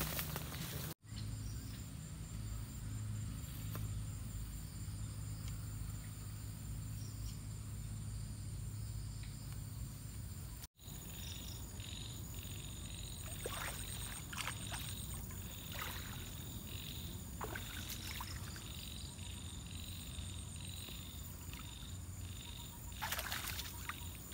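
Outdoor ambience of insects droning in steady high-pitched tones over a low rumble, with a pulsing insect chirr in the second half. Scattered short rustles from the second half on, with two brief dropouts, about a second in and near the middle.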